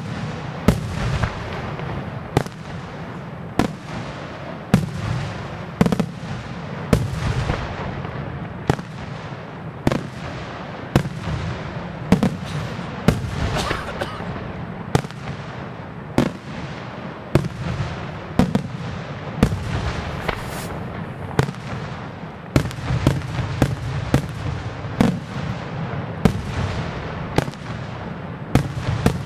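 Aerial firework shells bursting in a continuous barrage. Sharp bangs come about once a second, a little faster near the end, over steady crackling and rumble.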